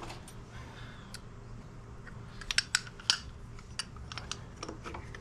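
Light metallic clicks and taps as a motorcycle's rear brake caliper, pads inside, is handled and fitted back against its bracket, over a faint steady hum; the clicks are scattered, bunching together about halfway through.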